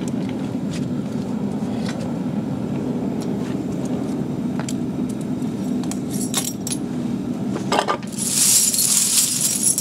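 Propane-fired foundry forge running with a steady low rush, with scattered light clinks of aluminum dog tags being handled. For the last two seconds a louder hissing crackle sits over it.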